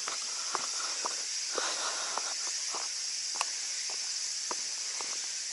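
Steady high-pitched insect chorus, with scattered soft clicks and ticks and one sharper click about halfway through.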